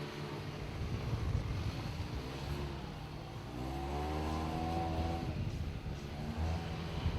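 Mitsubishi Outlander XL's 2.4-litre four-cylinder engine running under load, its revs climbing about three and a half seconds in, holding, then easing off near the end.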